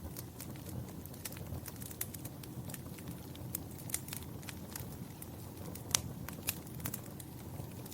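Fireplace fire crackling: irregular sharp pops and snaps over a steady low rumble of the flames, with the loudest pop about six seconds in.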